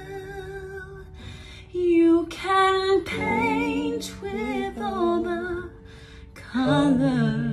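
A woman singing a Disney song cover: a held note at the start, then short melodic phrases with wavering pitch, broken by brief pauses.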